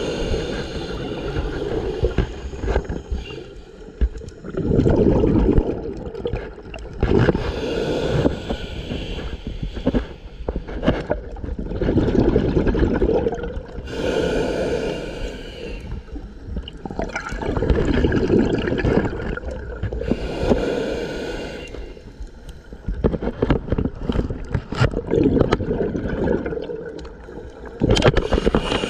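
Scuba diver breathing underwater through an open-circuit regulator: gurgling bursts of exhaled bubbles every few seconds, with quieter stretches between breaths.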